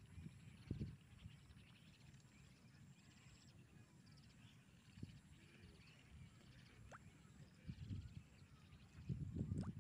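Faint open-field ambience: low gusts of wind bump on the microphone now and then, strongest near the end, with faint bird chirps and a thin rising whistle about seven seconds in.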